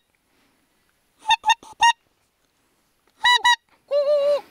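Geese honking: three short honks about a second in, two more just after three seconds, then a longer, lower, wavering call near the end.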